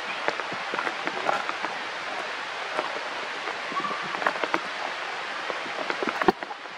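Raindrops pattering and dripping onto leaves and ground, an even hiss dotted with irregular drop ticks, with one sharper tick a little past six seconds.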